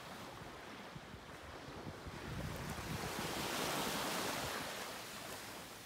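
Small waves breaking and washing up on a sandy shore, swelling louder about halfway through, with wind rumbling on the microphone.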